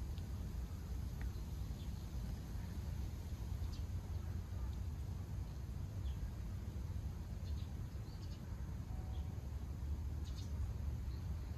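Outdoor ambience: a steady low rumble with scattered short, high chirps from small birds or insects.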